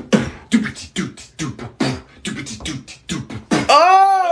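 Vocal beatboxing: a fast run of sharp percussive mouth sounds, about four a second. Near the end it gives way to a loud, drawn-out vocal cry that rises and then falls in pitch.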